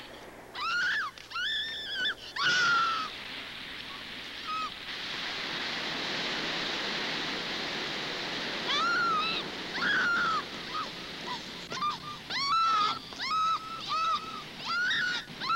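Short high-pitched whining cries, an animal whimpering, several rising and falling in quick runs, with a steady hiss for a few seconds in the middle.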